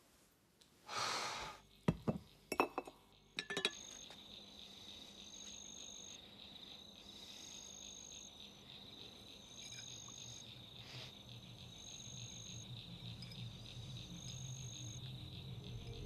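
A few sharp clinks of glass and ice in the first few seconds. Then crickets chirp steadily: a constant high trill with a short chirp about every second and a half. A low hum swells near the end.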